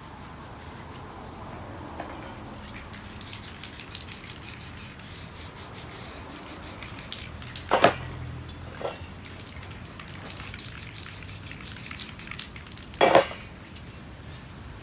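Aerosol spray paint can being worked, with a long run of quick high clicks and clatter, and two louder short bursts about eight and thirteen seconds in.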